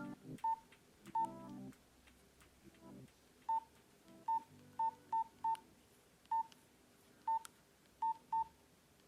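Nokia mobile phone keypad beeps: about eleven short, single-pitched beeps at irregular intervals as the phone's keys are pressed, with a few low electronic tones from the phone in the first two seconds.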